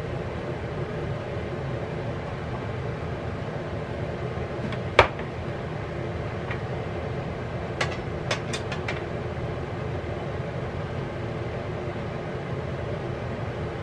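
Steady low mechanical hum of a running kitchen fan, with one sharp clink of kitchenware about five seconds in and a few lighter clicks about eight to nine seconds in.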